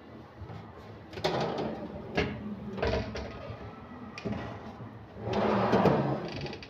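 A laminated wooden cabinet drawer being pulled open and pushed shut by hand, sliding on its runners with knocks and clicks; the longest, loudest slide comes about five seconds in.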